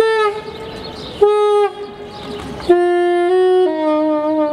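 Soprano saxophone playing slow, separate notes. The first two bend down slightly as they start, then come a few lower held notes, the last one long and wavering.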